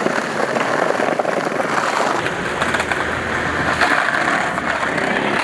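Skateboard wheels rolling steadily over brick and concrete paving, a continuous rolling noise.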